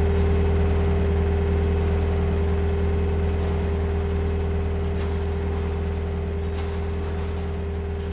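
A steady low droning hum with a held tone and a hiss of noise over it, slowly getting quieter.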